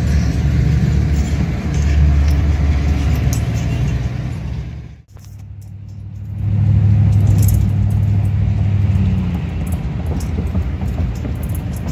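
BNSF diesel freight locomotives rumbling past close by, heard from inside a car. About five seconds in the sound drops out and gives way to the car's own engine and road rumble as it drives along, loudest for a few seconds and then easing.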